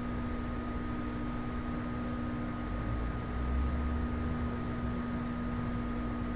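Steady room hum and hiss with several constant tones, and a low rumble that swells for about a second around the middle.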